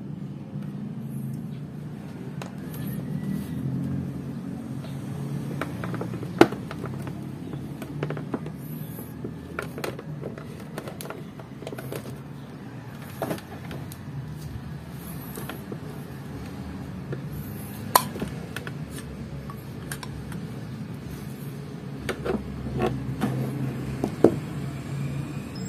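Scattered clicks and knocks of a screwdriver working the screws of a stand mixer's housing during disassembly, with three sharper knocks standing out, over a steady low rumble.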